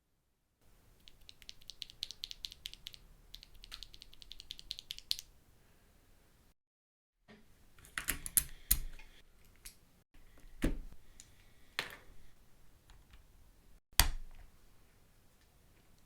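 Clicks and knocks of a mechanical keyboard being modified and handled. A run of rapid small clicks comes first, then scattered louder clicks and thuds, with abrupt breaks between them.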